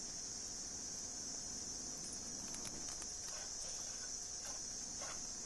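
Steady high-pitched chorus of insects, with a few faint knocks in the second half.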